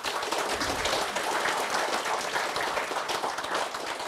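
Audience applauding, a dense steady clatter of many hands clapping that begins to thin out near the end.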